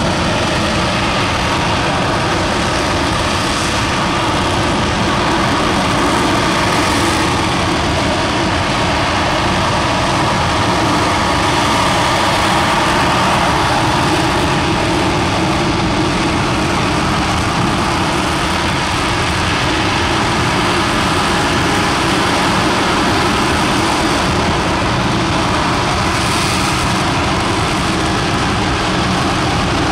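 Aerojet Rocketdyne RS-25 liquid-hydrogen/liquid-oxygen rocket engine firing on a test stand: a steady, thunderous roar with no breaks, partway through a 420-second full-duration hot-fire test.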